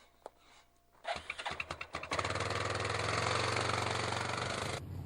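A vehicle engine is cranked by its starter for about a second, then catches and runs. It is loud at first, and near the end the upper part of the sound drops away, leaving a steady low idle.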